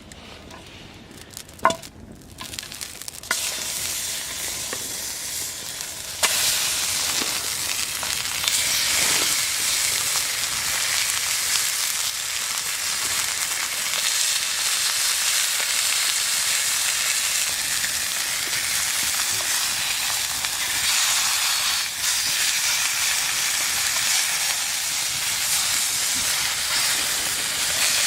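Meat medallion frying, sizzling steadily. A sharp knock comes just under two seconds in, the sizzle starts about three seconds in and grows louder around six seconds in as more of the meat hits the heat.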